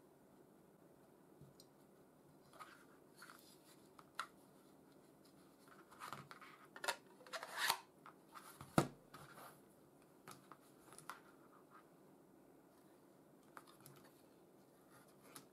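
Faint handling sounds of small parts: scrapes and light clicks of an aluminium heatsink with LEDs being fitted into a 3D-printed plastic housing, with a sharper knock just before nine seconds in.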